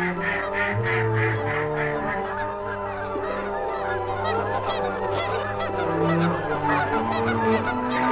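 A flock of geese honking in a rapid series, about three calls a second, thinning out in the middle and picking up again later, over held notes of instrumental music.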